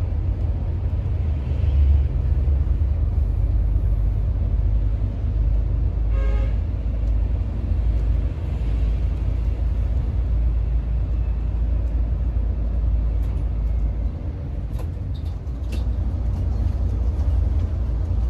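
Mercedes-Benz O500R 1836 coach on the move, a steady low engine and road rumble. A horn sounds briefly about six seconds in, and a few light clicks come near the end.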